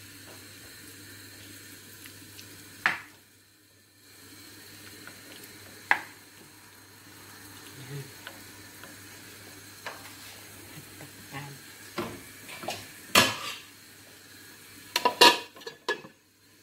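Marinated chicken sizzling in a non-stick frying pan while a wooden spatula stirs it, with a few sharp knocks of the spatula against the pan. Near the end a metal lid clanks onto the pan, the loudest sounds here.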